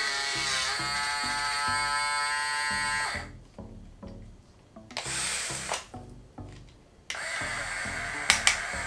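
Small electric gear motors of remote-control toy construction vehicles whining in bursts: a pitched whine for about three seconds, a short burst about five seconds in, and a longer one from about seven seconds in with two sharp clicks near its end. Background music with a steady beat plays underneath.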